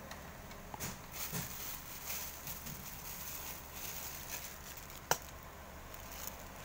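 Small sealed plastic sauce cup handled against a cardboard meal box: light, scattered clicks and rustles of plastic and cardboard, with one sharp tap about five seconds in as the cup is set down on the box.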